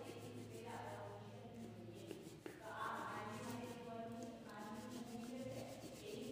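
Faint background music with a voice singing in phrases of a second or two, over the scratchy rub of a crayon colouring on paper.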